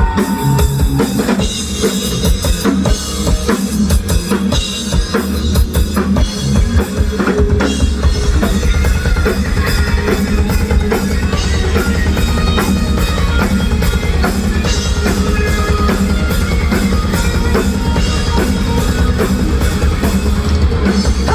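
Rock band playing an instrumental passage with no vocals, driven by a loud drum kit with bass drum and snare.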